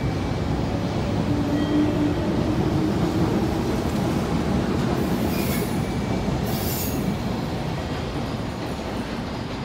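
JR Kyushu 415 series electric multiple unit running past as it pulls away: a steady rumble of wheels and running gear, with a steady tone for about a second and a half near the start. Two brief high-pitched wheel screeches come about five and six and a half seconds in, and the sound eases slightly near the end as the train moves off.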